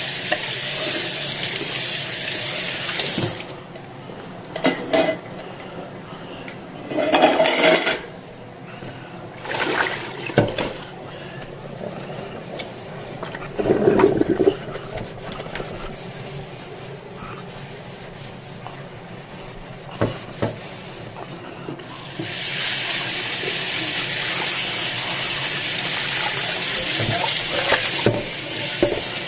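Kitchen tap running into a stainless steel sink while cookware is rinsed under it; after about three seconds the water stops. Through the long quiet middle a frying pan is scrubbed with a sponge, with occasional knocks of the pan against the sink, and the tap runs again about two-thirds of the way through as the pan is rinsed.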